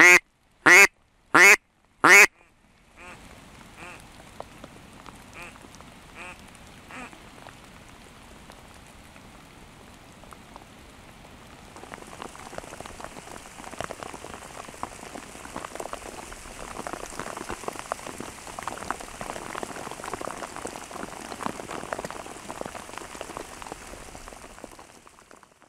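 A run of loud, evenly spaced duck quacks, then fainter quacks that die away. From about twelve seconds in, a steady patter of rain takes over and fades out near the end.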